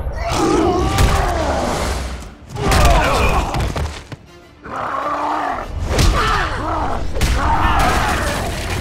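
Cartoon battle soundtrack: dramatic music under roaring, grunting creature voices, with several heavy crashes and thuds as bodies and wooden cages are smashed.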